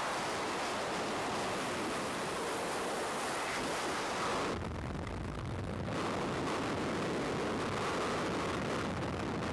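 Freefall wind rushing over the camera's microphone, a steady dense rush of noise. About halfway through it turns duller and lower for about a second and a half, then returns to the full rush.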